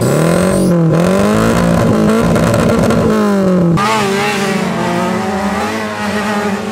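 A wreck-race car's engine revving hard during a burnout, the tyres spinning on the spot, its pitch swinging up and down. Near the middle the sound changes to racing cars' engines running at high revs on the dirt track.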